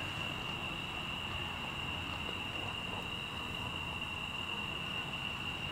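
Crickets chirring in one steady, unbroken high-pitched drone over a faint background hiss.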